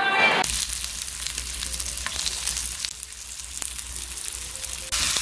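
Pork slices and pork skin sizzling on a grill pan over a portable gas stove: a steady hiss with scattered small pops, starting about half a second in.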